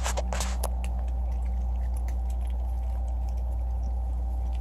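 Cats crunching dry kibble, a cluster of sharp crunches in the first second and a few faint ticks after. A steady low hum runs underneath.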